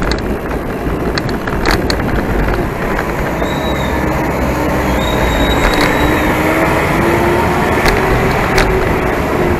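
Steady wind rush on the microphone and road rumble from a bicycle rolling along a concrete street, with scattered sharp knocks. A faint motor-vehicle engine hum rises slightly in pitch in the second half.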